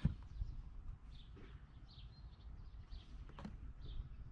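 Small birds chirping, short calls repeating about every half second to a second, over a low rumble, with a single click about three and a half seconds in.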